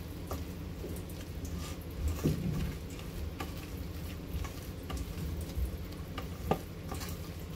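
Chana dal paste being mixed by hand in a stainless steel bowl: soft, wet squishing with irregular small clicks of fingers and spices against the steel, a soft knock about two seconds in and a sharper click near the end.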